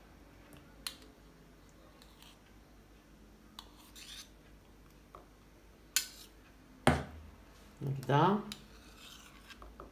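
Metal spoon and ladle clinking and scraping against each other and a steel saucepan while creamy pudding is spooned out: a few sharp clinks, the loudest about seven seconds in.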